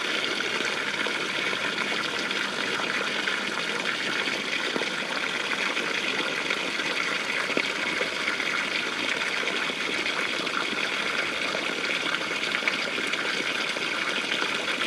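Waterfall and cascading mountain river: water pouring and splashing steadily.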